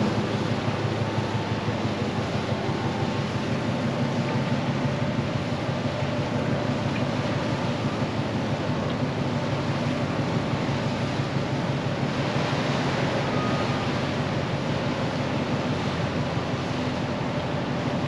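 The bulk freighter Federal Kumano's engine running with a steady low hum as the ship passes slowly close by, mixed with wind noise on the microphone.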